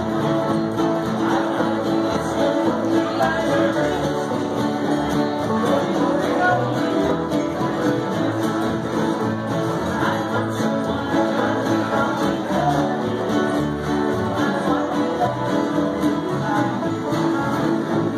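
Acoustic bluegrass jam: several acoustic guitars, a mandolin and an upright bass play a tune together at a steady level.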